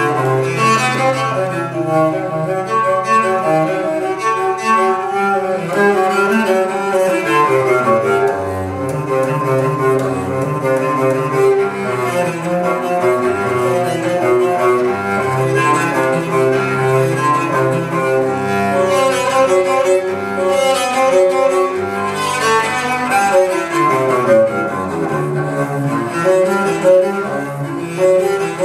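Recorded cello music played from a vinyl LP over hi-fi loudspeakers: a flowing bowed cello melody over sustained low notes, continuous throughout.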